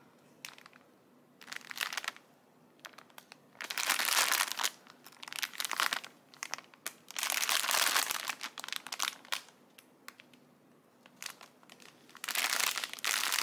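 Crinkling of clear plastic packaging as strips of sealed diamond-painting drill bags are handled and turned over. It comes in several bouts of rustling with near-quiet gaps between them.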